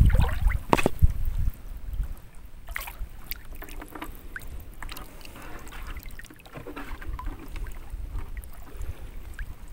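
Shallow seawater splashing and sloshing around a hand spear as a speared catch is worked free and lifted out. A loud low rumble and sharp splashes come in the first second and a half, then quieter small splashes and clicks.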